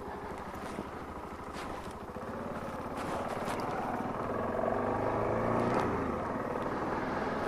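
A car engine and road noise heard while driving. The engine note rises in pitch and grows louder from about two seconds in, as the car speeds up, then eases off near the end.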